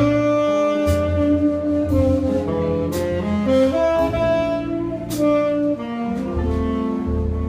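Live jazz quintet playing. A saxophone carries a melody of held notes over a walking low bass line, with sharp accents about every two seconds.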